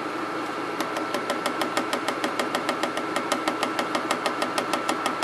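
A clear plastic chocolate-bunny mold full of liquid chocolate being tapped rapidly on a granite countertop, about eight quick knocks a second starting about a second in, to bring air bubbles up to the surface. A steady machine hum runs underneath.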